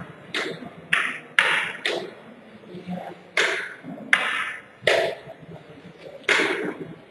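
A string of sharp knocks, about eight at uneven spacing, each ringing on briefly and echoing in the hall.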